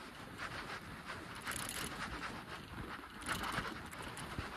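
A bicycle being ridden: irregular rattling and clicking from the bike's parts over a steady hiss of tyres rolling on wet pavement and passing air.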